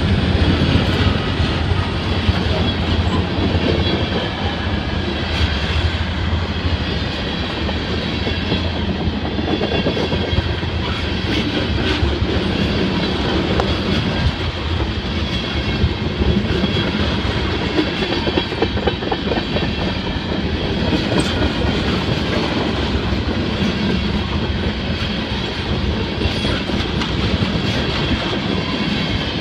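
Freight train of tank cars rolling past at close range: steel wheels clacking over rail joints over a steady rumble. The departing diesel locomotives' low drone fades out in the first few seconds.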